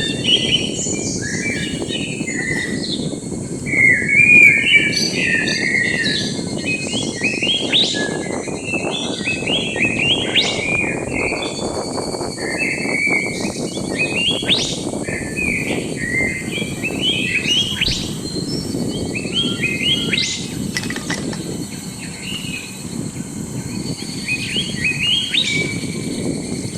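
Birds chirping and calling, with many short notes rising and falling in quick runs, over a steady low background noise.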